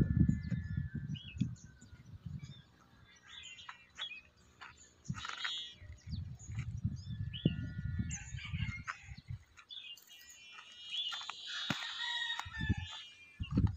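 A rooster crowing, clearest near the end, with small birds chirping and gusts of wind rumbling on the microphone.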